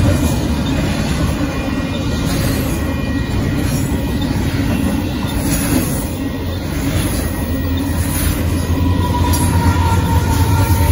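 Union Pacific intermodal freight train's cars rolling past at speed: a loud, steady rumble of steel wheels on the rails, with a deeper rumble building near the end.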